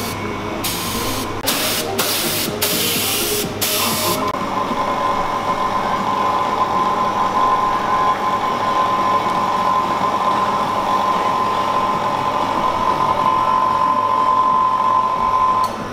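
A compressed-air gravity-feed spray gun hissing in about five short bursts over the first four seconds as colour is sprayed onto pastries. Then a steady mechanical hum with a high whine runs on until it cuts off just before the end.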